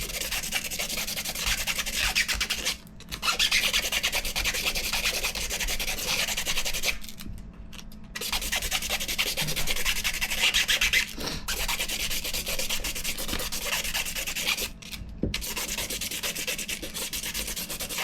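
120-grit sandpaper rubbed back and forth by hand over a 3D-printed plastic part, scuffing its surface so that glue will grip. The scratchy strokes come in stretches of a few seconds, broken by brief pauses four times.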